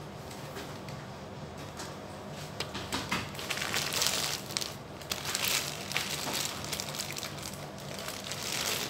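Clear plastic produce bags of vegetables crinkling and rustling as they are grabbed, lifted and turned over by hand, busiest from about two and a half seconds in.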